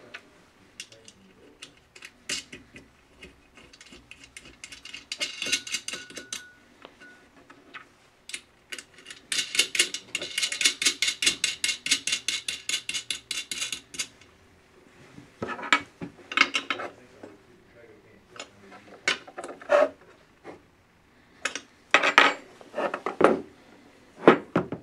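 Metal clinking, tapping and knocking as an LED street light's metal housing is assembled by hand with a hex key and other small tools. Two runs of rapid light metallic clicking, the longer lasting about five seconds, then scattered louder knocks and clinks.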